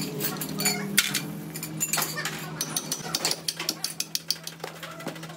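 Metal tools and gearbox parts clinking and knocking in irregular sharp clicks, with a quicker run of clicks past the middle, over a steady low hum.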